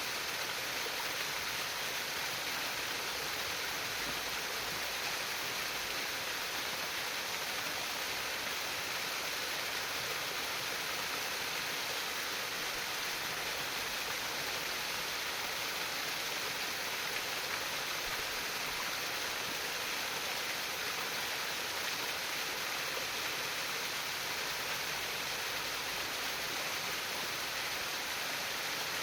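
Water trickling steadily in a stream, an even, unbroken rush with no pauses.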